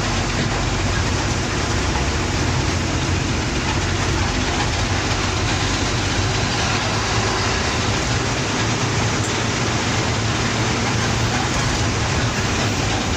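Bus engine running steadily with road and cabin noise, heard from inside the bus: a constant low drone with no breaks or sudden sounds.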